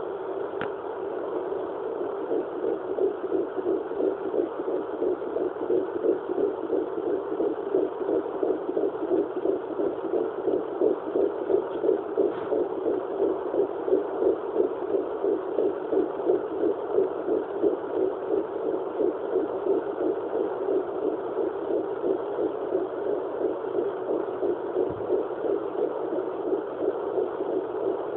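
Fetal heartbeat at 11 weeks 4 days of pregnancy, picked up by a handheld fetal doppler: a fast, regular whooshing pulse over a steady hiss from the doppler's speaker, growing stronger over the first few seconds.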